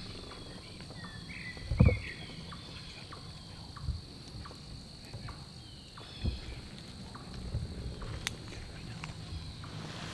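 Woodland ambience with a steady high insect hum and a few short chirps, broken by scattered soft knocks and one loud thump about two seconds in.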